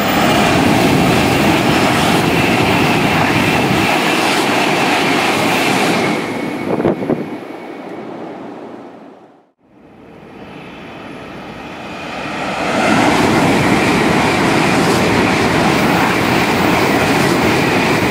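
Two N700-series Shinkansen bullet trains passing at high speed one after the other, each a loud rush of wheel and air noise. The first fades, with a brief clank about seven seconds in, and the sound dies to near silence about halfway through. The second then swells up and passes close by.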